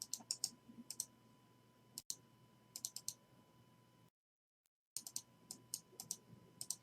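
Faint clicking at a computer: short, light clicks in small clusters of two to four, with a moment of dead silence a little past halfway.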